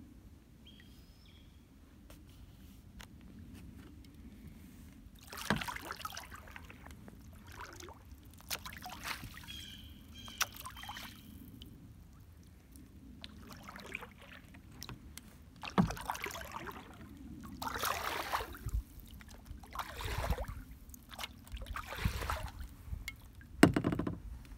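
Kayak paddle strokes on calm river water: the blade dipping in and pulling through with splashing and dripping about every two seconds, starting about five seconds in, the last stroke near the end the loudest.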